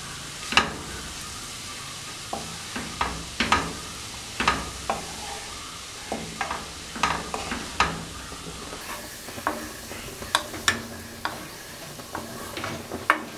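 Wooden spatula stirring and scraping chopped beetroot and amaranth leaves around a non-stick frying pan, with irregular knocks against the pan over a steady faint sizzle.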